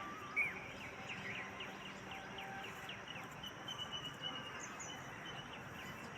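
Birds chirping in short repeated calls over a steady outdoor background hiss, with insect-like noise beneath.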